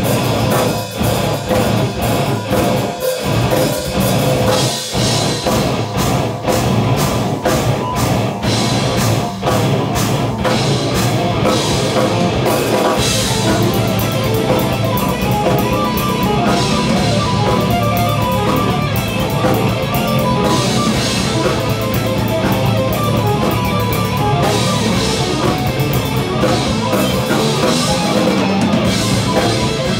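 Live heavy metal band playing together in the room: drum kit with cymbals and frequent drum hits, bass guitar, and distorted electric guitars, including Strandberg headless guitars through a Fractal FM3 amp modeller. Loud and continuous throughout.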